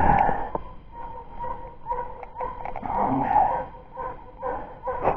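A hunting hound whining steadily, with rougher yelps and rushes of noise through it, excited over a freshly shot hare.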